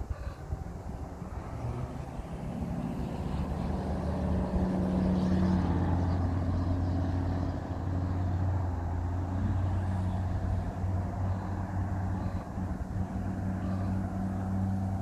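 An engine running with a steady low hum, growing louder over the first few seconds and then holding steady.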